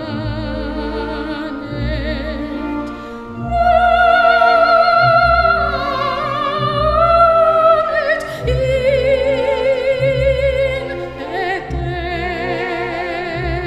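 A woman sings in classical operatic style with a wide vibrato, accompanied by a string orchestra. She holds long notes and swells louder on a long high note about three and a half seconds in.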